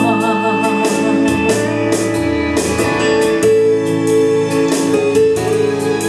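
Instrumental break of a song's accompaniment: guitar and keyboard over a steady beat. A woman's sung line, with vibrato, ends in the first second or so.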